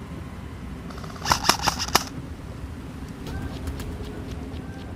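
Airsoft rifle shots: a quick string of about five sharp cracks, a little over a second in, over a steady background hiss.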